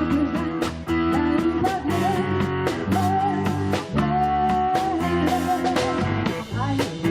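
Live band music: guitar prominent over drums and bass, with a steady beat and sustained melody notes.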